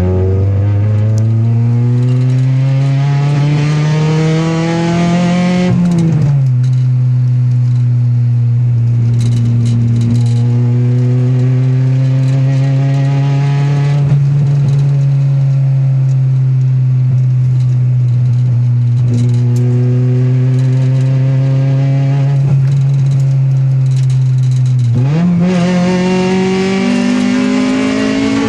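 Engine with a misfire, revved up over about six seconds, then dropping suddenly back to a lower speed and held steady there for most of the time, before revving up again near the end.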